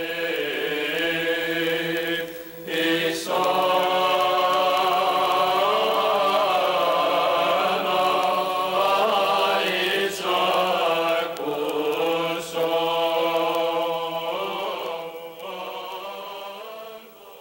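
A church choir chanting long held notes over a steady low drone, growing quieter near the end.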